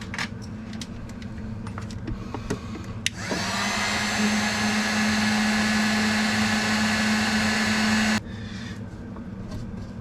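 A heat gun switched on, spinning up and blowing steadily for about five seconds with a strong hum, then switched off abruptly. It is heating a corroded brake line fitting to free it. A few small tool clicks come before it.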